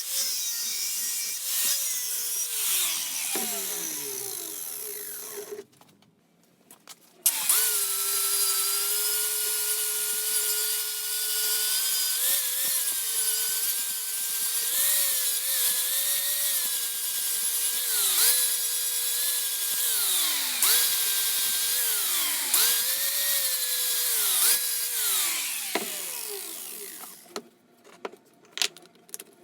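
Small electric power tool running under load, its motor pitch repeatedly sagging and recovering as it is pressed into the work. It stops about five seconds in, starts again a couple of seconds later, and stops near the end.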